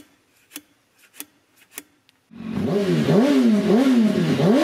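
A few light clicks, then from about halfway an engine revved in quick blips, its pitch rising and falling about four times.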